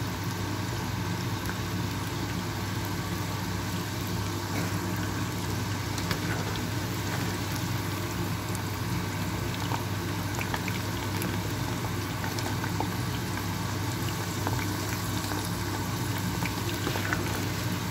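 Potato fries deep-frying in hot oil in a saucepan: a steady bubbling sizzle with small scattered pops, over a steady low hum.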